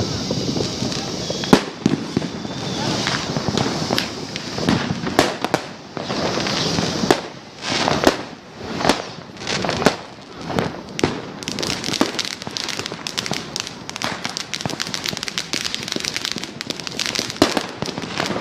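New Year's Eve fireworks and firecrackers going off: a hiss of crackle with sharp cracks, then a run of separate loud bangs about a second apart, then a dense, rapid crackling of many small explosions.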